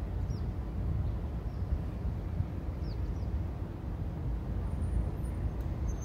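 Steady low rumble of an EP07 electric locomotive moving slowly while shunting, with two faint high bird chirps.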